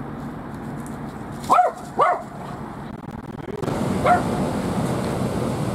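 Two short, loud animal calls about half a second apart, and a fainter third one about four seconds in, over a steady low hum. The background noise grows louder about three and a half seconds in.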